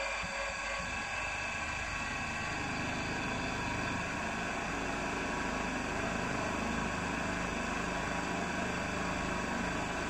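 Milling machine running steadily with a steady motor hum while a centre drill spots a bolt hole in a metal axle bearing flange.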